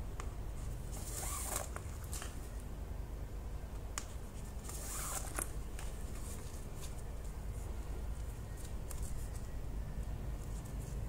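Yarn being pulled through crocheted stitches as two panels are sewn together with a needle: two brief swishes, about a second in and again about five seconds in, with a few faint ticks, over a steady low hum.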